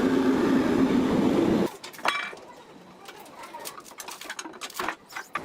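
A steady, loud power-tool noise cuts off abruptly under two seconds in, followed by scattered light clinks and knocks of tools being handled during a truck tire repair.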